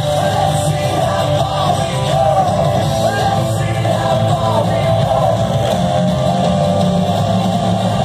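Loud music with a singing voice, its rock-like beat and melody running steadily without a break.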